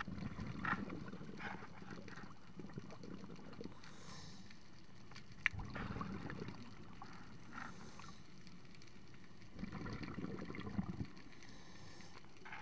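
Muffled underwater sound through a camera housing: bubbling rumbles come in bursts about every four seconds, like a scuba diver's exhalations, with a faint hiss between them. A single sharp click falls about halfway through.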